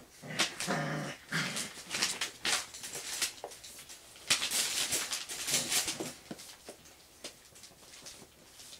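Puppies play-fighting: a few short puppy growls in the first second or so, then a busy stretch of scuffling, paws and bedding noise with sharp clicks that dies down after about six seconds.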